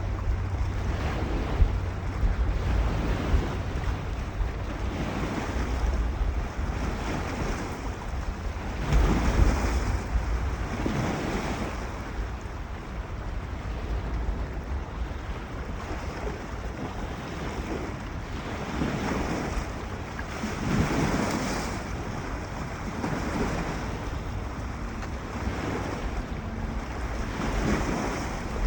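Wind-driven lake waves washing in at the shore in repeated surges, with wind buffeting the microphone as a low rumble underneath.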